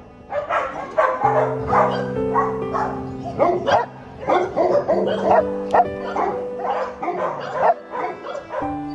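Many dogs barking over one another, several barks a second throughout, over background music with held chords.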